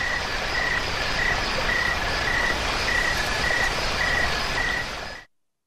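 Meadow soundscape from an Ecotones Sound+Sleep ASM1002 sleep machine: insects chirping in a regular high pulse, about two chirps a second, over a steady hiss. It cuts off suddenly about five seconds in.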